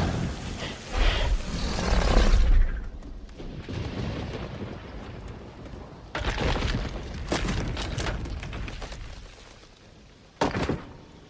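Film sound effects of heavy booming crashes and thuds, loudest in the first two and a half seconds, followed by a quieter stretch of hiss and a run of sharp impacts near the end.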